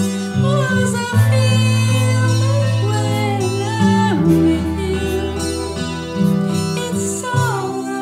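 A woman singing with acoustic guitar accompaniment, her voice moving between held notes.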